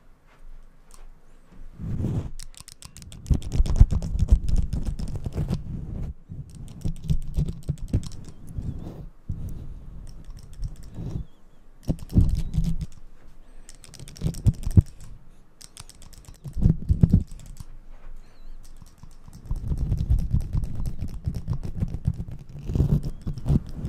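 Manual (squeeze-operated) hand clippers clicking rapidly in repeated bursts of one to a few seconds each, worked close against a fluffy microphone cover, with low rubbing and rustling of the fur under the clicks.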